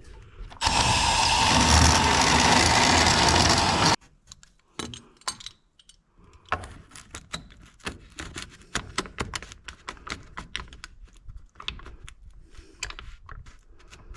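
A power tool runs steadily for about three seconds, cutting through central vacuum pipe, and stops abruptly. Scattered clicks and light knocks follow as the pipe and fittings are handled.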